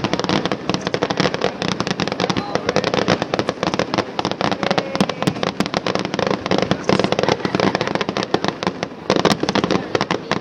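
Fireworks going off in a dense, rapid barrage of crackles and bangs, many per second.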